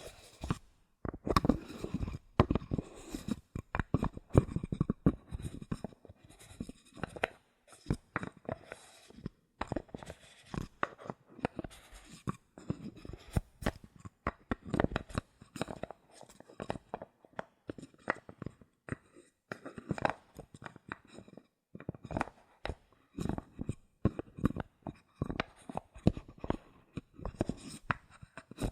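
Bottle caps being handled, tapped and scratched: a dense, irregular run of small clicks and taps.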